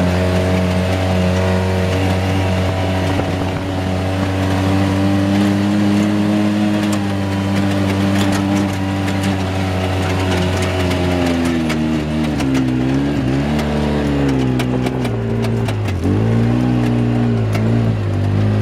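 Dune buggy engine running steadily at speed, heard from inside the cockpit. From about twelve seconds in its pitch dips and climbs again several times, with scattered clicks and rattles over the top near the end.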